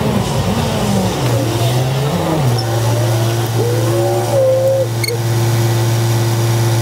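Commuter bus engine heard from inside the bus, fast-forwarded: its pitch slides up and down for the first couple of seconds, then holds a steady tone.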